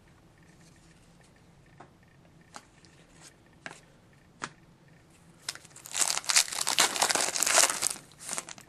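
Foil wrapper of a hockey card pack crinkling and tearing as it is opened: a few scattered crackles, then about three seconds of dense crinkling near the end.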